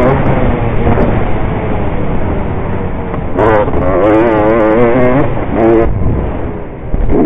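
Motocross bike engine revving hard on the track, heard from on board over a steady rush of wind. The revs climb about three seconds in, hold and waver, fall away near six seconds, and climb again near the end.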